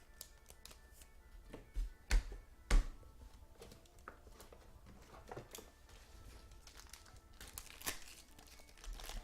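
Plastic card sleeves and packaging crinkling as trading cards are handled, with three sharp knocks on the table about two to three seconds in and scattered rustles after, over faint background music.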